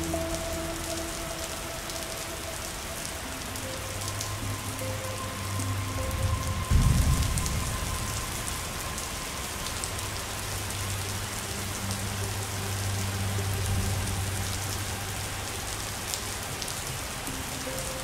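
Steady rain falling, with soft sustained notes of background music under it. A brief low rumble about seven seconds in is the loudest moment.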